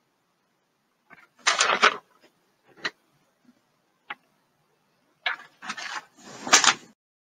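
Rustling and rubbing handling noise close to the microphone, in two short spells of about a second each, with two sharp clicks between them.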